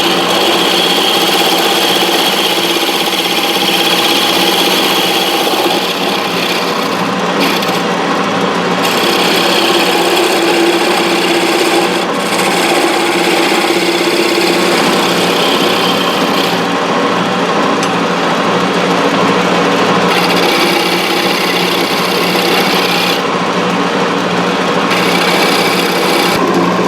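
Wood lathe running steadily while a turning tool cuts the spinning wood of a finial. The high, hissing scrape of the cut comes and goes in stretches of a few seconds over the motor's steady hum.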